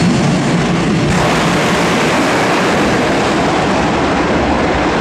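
Drag-racing cars at full power on the strip: a loud, continuous engine roar that grows brighter and harsher about a second in.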